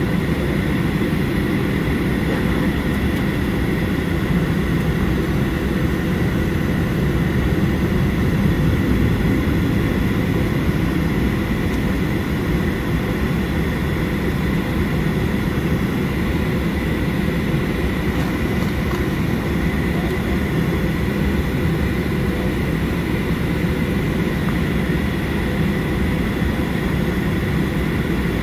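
Steady cabin noise inside a Boeing 737-800 on the ground, its CFM56-7B turbofan engines running at low taxi power: a steady low rumble with a faint high whine.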